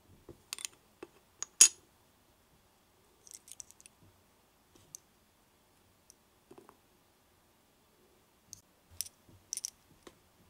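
Light clicks and taps of miniature plastic dishware and a tiny metal spoon being handled, as paper-clay butter is spooned from a toy butter dish into a small glass bowl. They come in sparse bursts: a few sharp clicks over the first two seconds, the loudest near the middle of them, a quick run of ticks a little past three seconds, and another cluster near the end.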